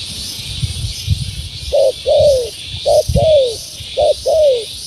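Spotted dove cooing: three calls, each a short note followed by a longer falling coo, starting a little under two seconds in, over a steady high whirring in the background.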